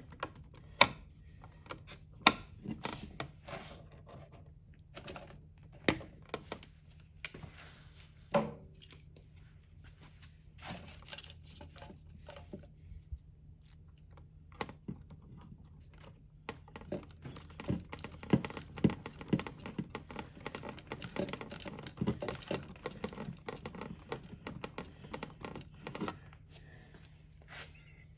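Irregular small clicks, taps and scrapes from wires, twist-on wire connectors and a wall switch being handled and fitted, coming thicker and faster in the second half, over a faint low hum.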